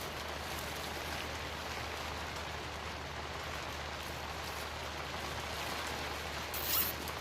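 A nylon zip tie being pulled tight around a flexible air duct, a short rasp near the end, over a steady hiss.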